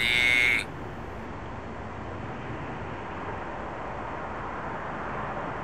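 A brief voice at the very start, then a steady, even background noise with no distinct events.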